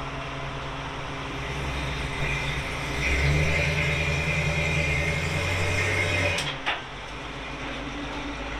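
A motor running steadily with a low hum and a high whine, louder from about three seconds in, then cutting off sharply after about six seconds, followed by a couple of clicks. A quieter steady idling hum carries on underneath.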